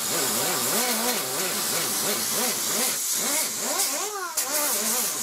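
Handheld grinder with a coarse 36-grit fiber resin disc grinding rust and paint off a car's lower body panel. The motor's pitch keeps dipping and rising as the disc is pressed on and eased off, over a steady hiss of abrasive on metal. About four seconds in it briefly speeds up higher as the disc comes off the panel.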